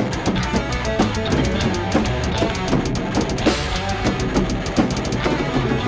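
Metalcore band playing an instrumental passage: drum kit with fast, rapid bass-drum and cymbal strokes under electric guitar and bass guitar.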